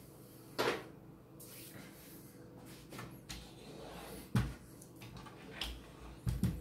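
A handful of light, separate knocks and clatters of hands handling the DVD player's casing and loose cover, about five in all and spaced irregularly, over a faint steady hum.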